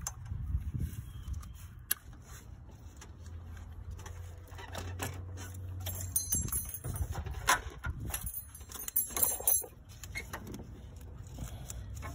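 Metal tools and parts clinking and rattling by hand in a car's engine bay, with scattered light knocks. A run of bright metallic jingling comes from about six to nine and a half seconds in.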